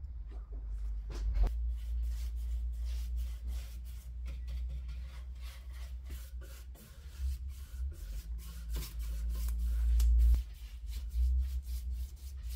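Paintbrush strokes on an MDF frame: a quick run of short, scratchy brushing sounds over a low rumble.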